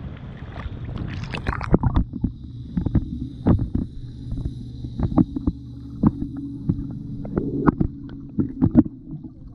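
A camera going from the water's surface to underwater: the open wash of wind and splashing cuts to muffled underwater sound about two seconds in. Underwater there is a steady low hum with scattered sharp clicks and knocks.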